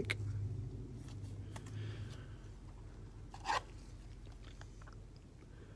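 Faint rustling and scraping of a thin plastic penny sleeve as a trading card is handled and slid into it, with scattered small clicks and one brief, louder scrape about three and a half seconds in.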